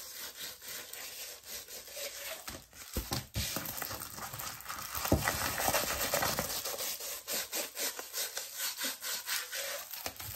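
Irregular scratching and rubbing with small ticks as diamond painting bead bags and packaging are handled and labelled at a desk.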